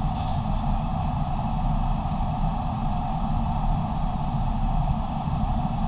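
Steady flight-deck noise of an airliner on final approach: airflow rushing over the cockpit with a low engine rumble, unchanging throughout.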